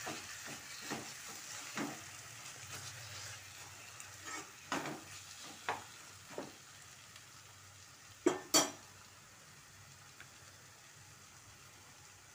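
Thick vegetable curry sizzling in a non-stick kadai while a spatula stirs it, scraping and knocking against the pan now and then. Two louder knocks come about eight seconds in, and the sizzle grows fainter toward the end.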